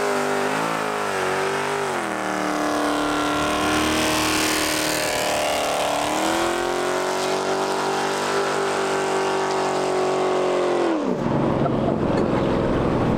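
Dodge Charger's V8 held at high revs in a burnout, the rear tyres spinning and screeching on the pavement. The engine note dips about two seconds in, climbs again around six seconds, and falls away near the end.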